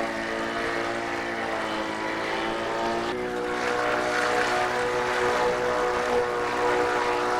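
Petrol lawn mower engine running steadily, its note stepping up slightly about three seconds in.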